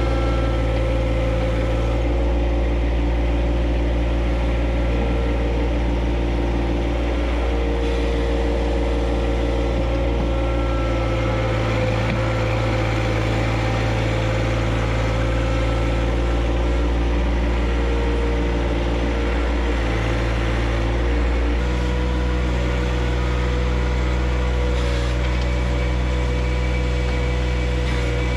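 John Deere 1025R compact tractor's three-cylinder diesel engine running steadily, its note shifting slightly a few times.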